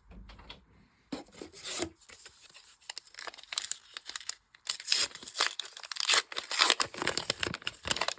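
Trading card booster pack wrapper being torn open and crinkled by hand, with scattered crackles at first and then a dense, busy run of crinkling in the second half.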